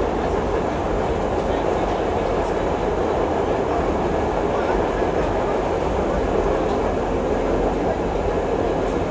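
Budd R32 subway train running along the track, a steady rumble of wheels and car body with no break.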